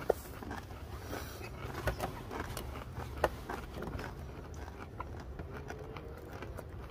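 Quiet chewing of a spicy blue corn tortilla chip with the mouth closed: a few faint crunches and clicks over a low, steady background rumble.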